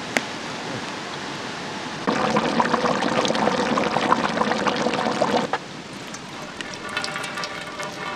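Chicken curry simmering in a large pot, bubbling loudly from about two seconds in and cutting off suddenly a few seconds later. Then liquid trickles and drips through a perforated aluminium colander, with background music coming in near the end.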